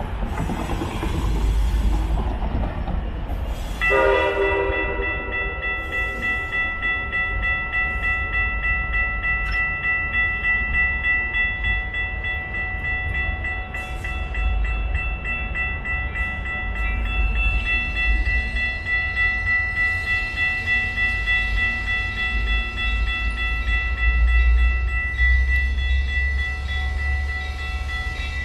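Railroad grade-crossing warning bell starts ringing about four seconds in and keeps ringing steadily, signalling an approaching train, over the low rumble of passenger trains on the elevated tracks.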